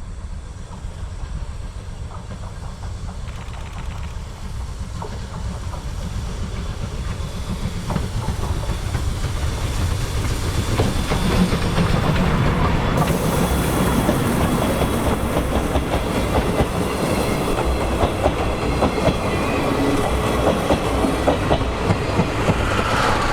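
Steam-hauled passenger train on the Chichibu Railway, the C58 locomotive with 12-series coaches, approaching and passing. A low rumble grows louder, and from about a third of the way in the wheels clatter over the rail joints.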